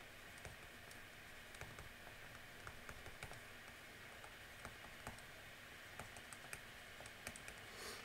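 Faint, irregular clicks and taps of a pen stylus on a tablet as letters are hand-written, over a low steady hiss.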